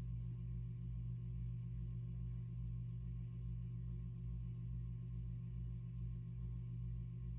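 Steady low electrical hum at one constant pitch, with a faint even throb beneath it and no change throughout.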